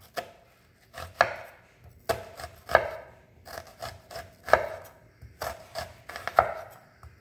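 Chef's knife slicing down through half a red onion, each cut ending in a knock on a wooden cutting board, about one slice a second.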